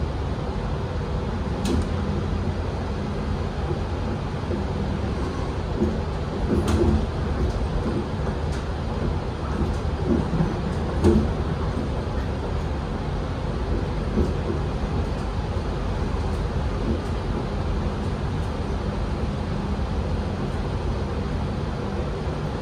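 Electric passenger train heard from inside the carriage while running: a steady low rumble of wheels on rail, with a few short knocks and rattles, the loudest about seven and eleven seconds in.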